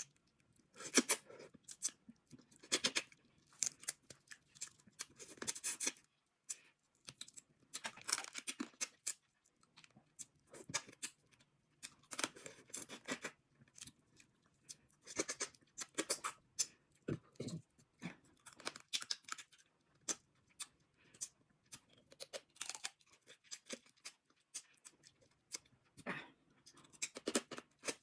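Eating a seafood boil: shells cracking and tearing, with chewing, in irregular spells of sharp crackles and clicks broken by short pauses.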